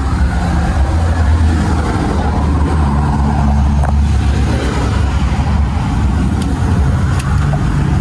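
Steady low rumble of a car's engine and road noise, heard from inside the cabin while driving.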